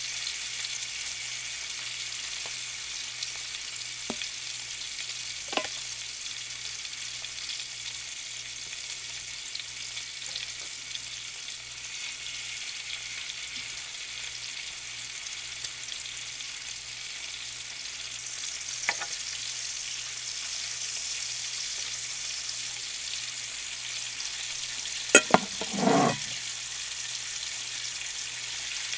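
Bacon sizzling steadily in hot fat in an electric fry pan, with a few light clicks and, near the end, a louder clatter of a metal fork.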